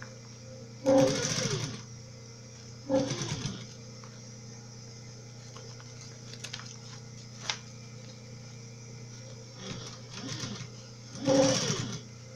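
Domestic electric sewing machine stitching in four short runs of about a second each, starting and stopping as bias binding is topstitched down around the edge of a clear bag. The last two runs come close together near the end.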